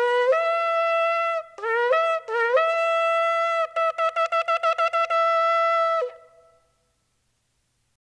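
Ram's-horn shofar blown on its two main notes: long held notes that step or slide up from the lower to the upper note, then a quick run of about nine short blasts, and a final long note that stops about six seconds in.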